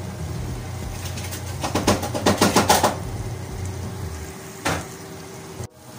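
Thick tomato and egg stew simmering in a frying pan on a gas hob, with a quick run of sharp pops about two seconds in and one more near the end, over a low steady hum that stops a little after four seconds.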